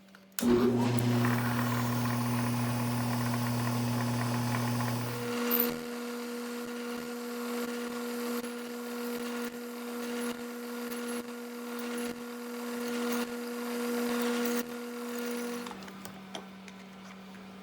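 Milling machine spindle starting up and running while center drilling and then drilling a 1/4 inch side hole in a small aluminum part. The motor's hum changes pitch about five seconds in, the sound swells and eases repeatedly as the drill is fed in, and the spindle stops near the end.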